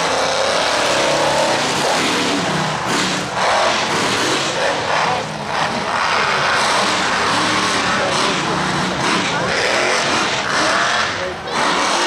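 Monster truck engine revving hard, its pitch rising and falling as the truck climbs over a pile of crushed cars, with brief drops in the revs twice.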